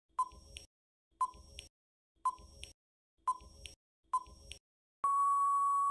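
Quiz countdown timer sound effect: five short beeping ticks about a second apart, then one longer steady beep near the end that marks time running out.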